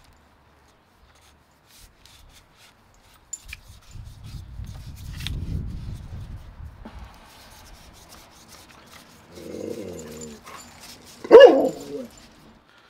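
A dog gives a shorter, quieter call and then one loud bark near the end. Before that come faint clicks and a low rumble as a pressure washer's metal lance is twisted into its spray gun.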